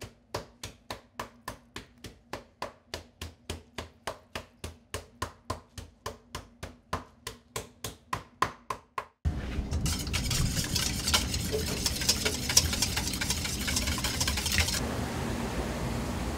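Gloved hands slapping and patting thin slices of raw pork, about three wet slaps a second. About nine seconds in, this gives way abruptly to a steady, noisy kitchen din with scattered crackles and handling sounds.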